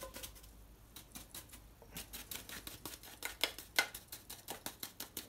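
A small brush scrubbed quickly over the screw threads of a Myford lathe's spindle nose and a cast-iron chuck backplate to clean them: a fast run of dry scratchy ticks, busier and louder from about two seconds in.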